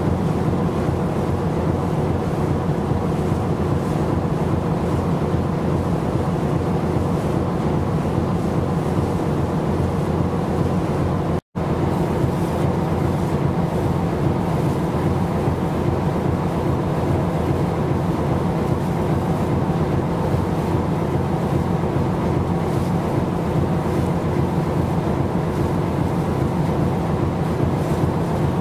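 Steady drone of a ship's engine over a hiss of wind and water, with a momentary dropout about eleven seconds in.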